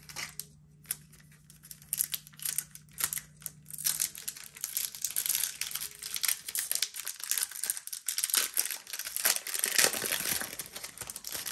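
Foil wrapper of a Pokémon Lost Origin booster pack crinkling as the pack is torn open. A few scattered rustles and clicks first, then dense crinkling from about four seconds in.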